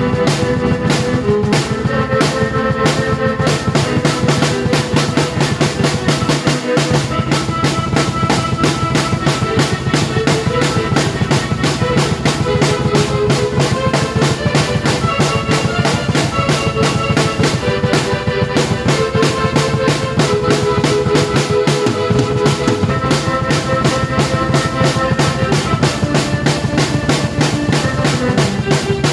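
Drum kit played with a busy, steady beat of kick, snare and cymbals, together with a keyboard playing a melody over it.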